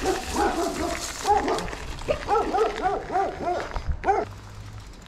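A dog barking in quick runs of short barks, about five a second at the fastest, the last bark a little after four seconds in.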